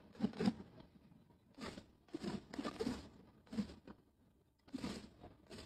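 Fireworks bursting: a string of irregular bangs and crackles a fraction of a second long, with short quieter gaps between them.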